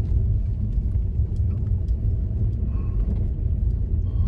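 Car driving slowly over a snowy, icy road, heard from inside the cabin: a steady low rumble of engine and tyres.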